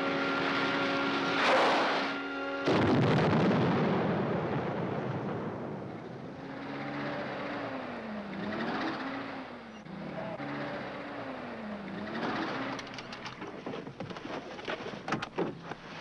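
Dramatic orchestral music with held chords is cut off about three seconds in by a loud explosion. Its rumble dies away over several seconds. Quieter music with rising and falling tones follows, and a few sharp clicks come near the end.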